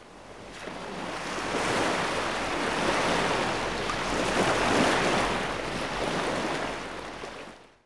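A long swelling rush of noise with no distinct pitch, a whoosh-like sound effect for an animated logo intro: it fades in over about two seconds, holds, and fades away near the end.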